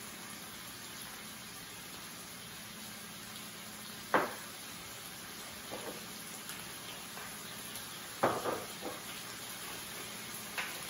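Deer stew meat sizzling steadily in oil in a skillet as it browns, with a few short clicks and knocks from spice jars and lids being handled, about four and eight seconds in.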